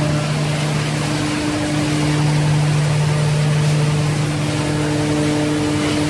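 Wood-chip processing line running steadily: belt conveyor and hammer mill machinery giving an unchanging low hum with higher overtones over a dense rushing noise.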